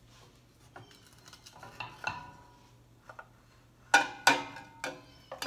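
A wooden spatula scrapes under a sandwich in a stainless steel frying pan. About four seconds in come four sharp metallic clanks as the pan is lifted and tipped over a plate.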